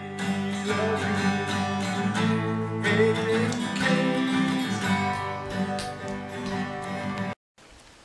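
Steel-string acoustic guitar being strummed in chords, a steady rhythmic strum that cuts off suddenly near the end.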